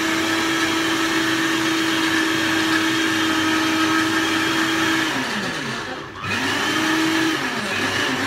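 Electric countertop blender running steadily, grinding cubed potato and aloe vera into juice. About five seconds in the motor winds down almost to a stop, then is switched back on and runs again, slowing and picking up once more near the end.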